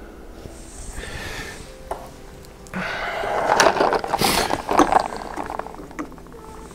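Handling noise as plastic board-game miniatures are swapped on a small white display stand: rustling and scraping, loudest in the middle, with a few light clicks.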